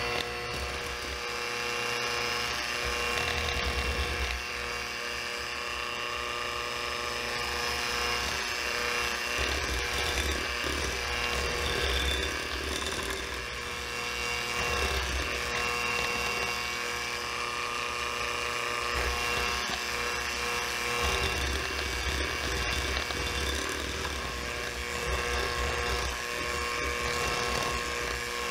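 Electric hand mixer running steadily, a constant motor whine, its two wire beaters churning through softened butter in a glass bowl to cream it.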